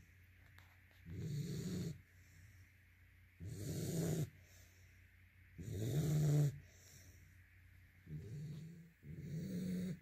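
Sleeping yellow Labrador retriever puppy snoring: five rasping breaths about two seconds apart, the loudest about six seconds in.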